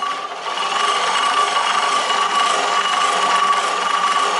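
Corded electric drill running at a steady speed with a constant whine, turning an old no-compression engine over through a starter-motor armature clamped in its chuck, cranking it to test the ignition for spark.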